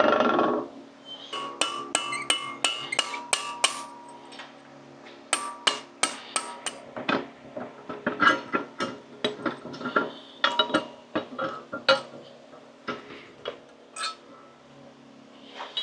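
Metal struck with a hammer: sharp clinks on steel, each ringing briefly, in several quick runs of about three or four strikes a second.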